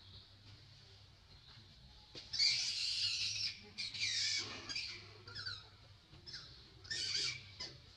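Baby macaque crying in a series of high-pitched calls: a long one about two seconds in, a second soon after, then several short ones and a last one near the end.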